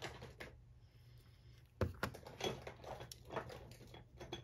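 Handling of nail-stamping tools: a scatter of light clicks and knocks of small hard items being picked up and set down, about six in all, the loudest a little under two seconds in.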